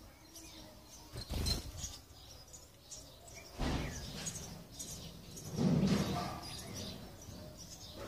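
House sparrows chirping repeatedly at the nest, many short high chirps, as an adult visits to feed the chicks. Three brief, louder rushing noises cut in among the chirps, the loudest about six seconds in.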